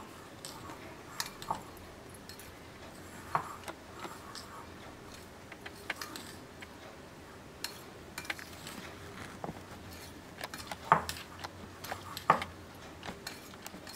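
Metal spoon mixing grated cheese and chopped onion in a glass bowl: soft, irregular clinks and scrapes of the spoon against the glass, a few sharper clinks near the end.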